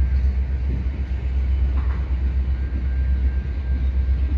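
Freight cars rolling slowly across a steel railway bridge, a steady low rumble.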